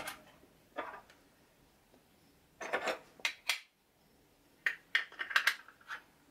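A glass pan lid and its black plastic knob parts being handled: short clusters of light knocks and clinks about a second in, near the middle, and again from about four and a half to five and a half seconds.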